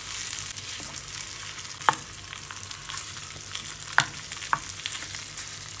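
Hot oil sizzling in a frying pan while boiled potatoes are broken up and stirred with a wooden spatula. A few sharp clicks stand out about two seconds and four seconds in.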